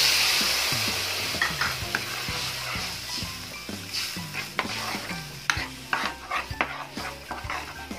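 Water just poured into a hot wok of gochujang and chili sauce sizzles loudly at first, and the sizzle fades over the next few seconds. Then a spatula stirs the bubbling sauce, scraping and clicking against the metal wok at irregular intervals.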